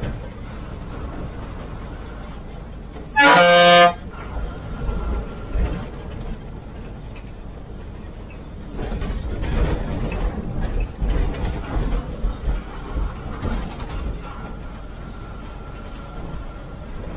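A bus horn sounds one short, loud blast about three seconds in, over the steady rumble of the bus engine and road noise inside the cabin. The rumble grows rougher and louder for several seconds in the second half.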